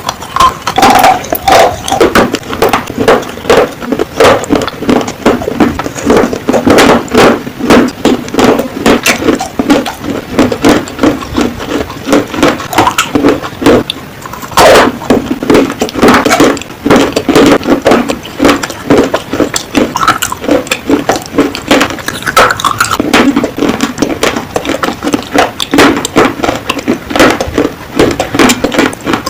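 Baked clay (Punjab mitti) being bitten and chewed: a loud, dense run of sharp crunches, several a second, with a brief lull about halfway through.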